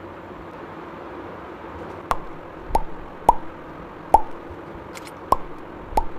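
Six short, sharp pops, each with a brief ringing note, coming irregularly about half a second to a second apart from about two seconds in, over a steady low hiss.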